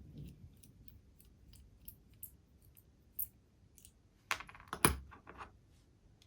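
Light metallic clicks and taps of small model-locomotive parts, a screw and a small screwdriver being handled as a screw is taken back out, with a quick run of louder clinks about four and a half seconds in.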